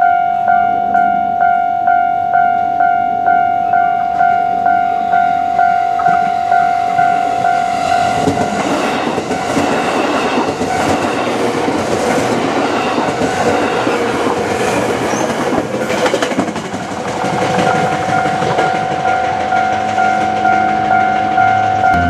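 Railway level-crossing warning bell ringing in even pulses about twice a second. From about eight seconds in, a passing electric commuter train drowns it out for about nine seconds, its wheels clattering over the rails; then the bell is heard ringing again.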